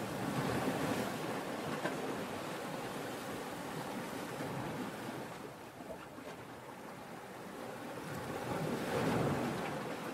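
Sea surf: a steady rush of waves that swells near the start, eases off about six seconds in, and surges again about nine seconds in.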